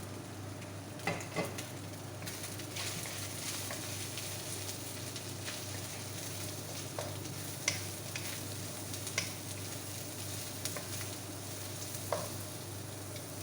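Chicken and vegetables stir-frying in oil in a pan, sizzling steadily while a utensil stirs them, with a few sharp clicks of the utensil against the pan.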